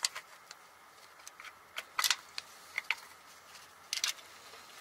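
Irregular sharp metallic clicks and clinks of hand tools and engine parts being handled while the timing chain tensioner is worked back into place on a Toyota 5.7 V8. There is a cluster of clicks about two seconds in and another about four seconds in.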